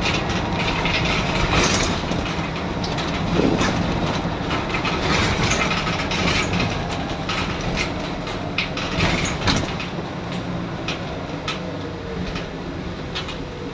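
Inside the upper deck of a moving Scania N94UD East Lancs OmniDekka double-decker bus: steady diesel engine drone and road noise, with frequent short rattles and knocks from the body and fittings. In the second half a whine slowly falls in pitch.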